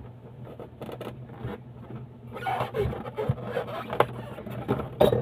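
Polystyrene foam packing being worked loose from a cardboard box: foam and cardboard rubbing and scraping, with a few sharp knocks, the loudest near the end.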